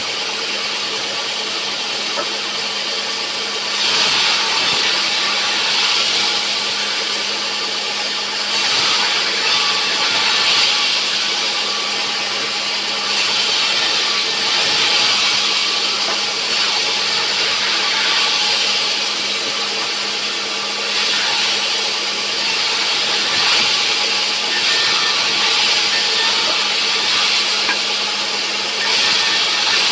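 Sawmill saw cutting through a log of bent rubberwood: the machine runs steadily with a constant hum, and the cut grows louder and hissier in stretches, first about four seconds in and then several more times.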